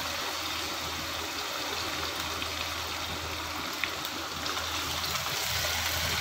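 Chopped carrots and green capsicum sizzling as they fry in ghee in a pan, a steady hiss. There is one short click a little before the four-second mark.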